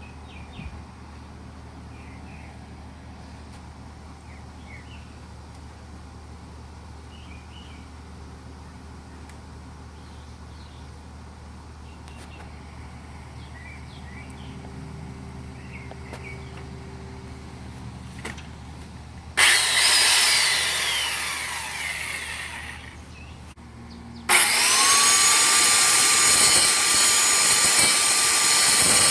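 A few short bird chirps over quiet outdoor background, then a circular saw. About two-thirds of the way in, the saw's motor is triggered loudly and whines down over a few seconds. Near the end it starts again, its pitch rising to full speed and then running steadily.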